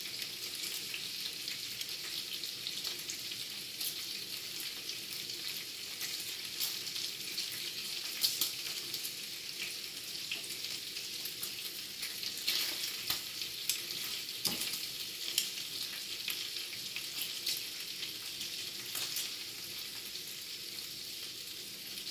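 Strips of bacon frying on a griddle: a steady sizzle with dense crackling spatter and a few sharper ticks scattered through.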